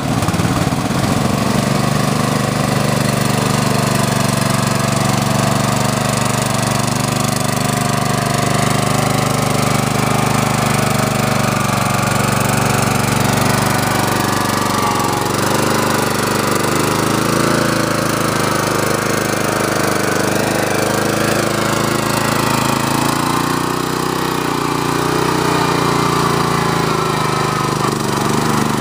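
Small engine of a modified riding lawn mower running under load as it drives through creek water and mud, its pitch wavering up and down with the throttle. Water churning around the wheels.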